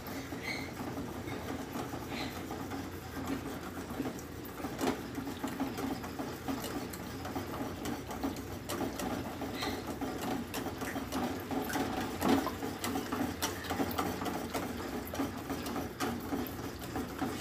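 Wire balloon whisk beating milk and mango purée in a stainless steel pot: a steady fast rattle of the wires clicking against the metal pot.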